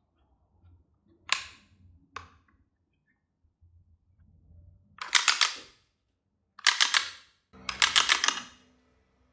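Wooden 'space stapler' rubber-band SMG firing: two single clacks, then three rapid full-auto bursts of clacking as the mechanism releases band after band, the last burst the longest.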